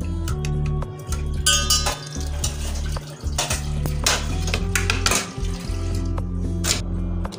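Steel kitchen utensils clinking and clattering as they are set down and stacked in a rack, several sharp clanks a second or so apart, over a steady low hum.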